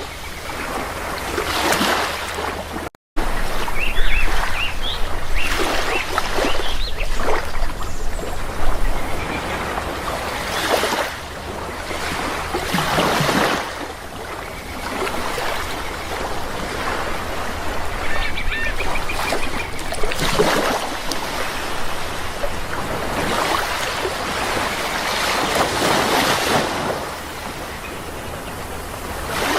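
Sea waves washing in and breaking one after another, each a swelling rush of surf, with bird calls over them, a few short ones about four to seven seconds in and a cluster about two-thirds of the way through. The sound cuts out for an instant about three seconds in.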